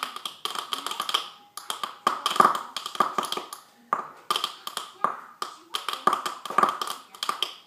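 Frozen iMac making rapid, irregular popping and clicking in clusters of sharp pops with brief gaps, a fault that some blame on the hard drive and others on the RAM.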